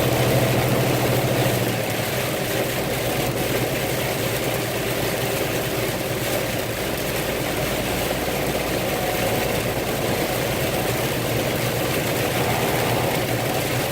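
Truck engine idling, heard from inside the cab, with a steady hiss over it; its low hum drops a little about two seconds in.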